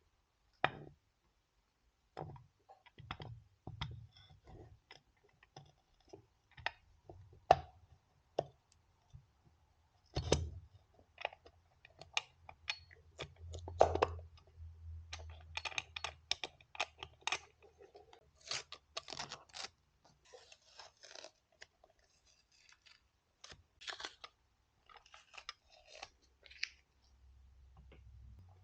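Irregular clicks, knocks and scraping of hand tools and metal engine parts being handled, with a low hum in parts.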